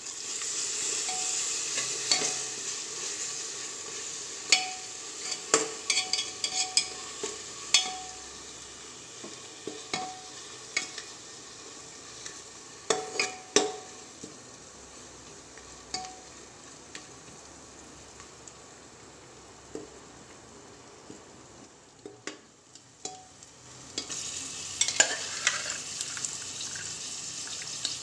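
Masala paste sizzling and frying in oil in an aluminium pressure cooker, stirred with a spoon that knocks against the pot's sides with short ringing clanks. The sizzling is loud at first, dies down, and surges again near the end.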